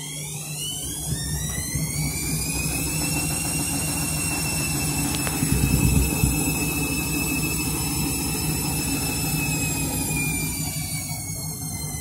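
Washing machine spinning up: its motor whine rises in pitch over the first few seconds, holds steady, then starts to fall again about ten seconds in, over a deep rumble from the drum that swells about halfway. The load is out of balance.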